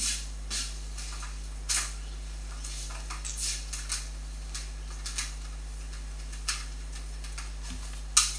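Scattered light clicks and clatter of a plastic desk lamp being handled and positioned, over a steady low electrical hum.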